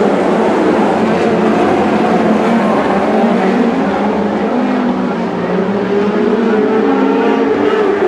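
A pack of Lightning Sprint cars racing on a dirt speedway oval: many engines running hard together, their pitches rising and falling as the cars accelerate and lift through the turns.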